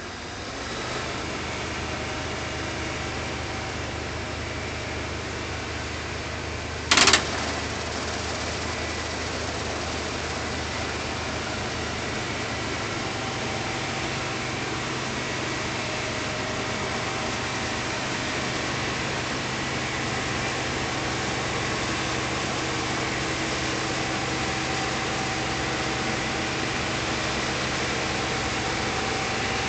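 New Holland TX36 combine harvester running steadily as it works through standing wheat, its engine and machinery humming and growing slightly louder. A brief, loud noise cuts in about seven seconds in.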